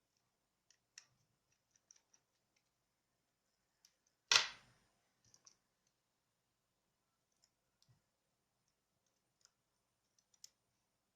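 Scattered small clicks and taps of a Nokia Lumia 535 phone's parts and small tools being handled during disassembly, with one louder clack about four seconds in.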